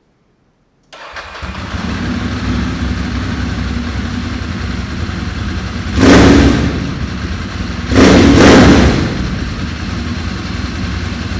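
Ducati Monster's V-twin engine cuts in suddenly about a second in and idles with a steady, lumpy beat. It is revved twice, briefly in the middle and then longer.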